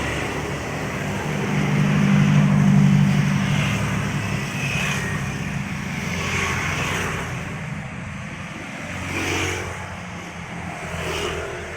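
Motor vehicle engines running with road traffic passing: a steady low engine hum that swells about two seconds in, then several vehicles going by.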